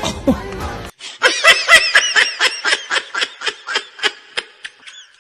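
A person laughing in a rapid run of short bursts, about four a second, trailing off toward the end. Music from the previous clip cuts off about a second in.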